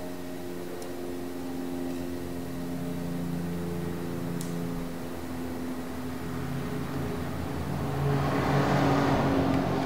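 Background music of sustained chords that shift every few seconds, with a whooshing swell that builds about eight seconds in and is the loudest part.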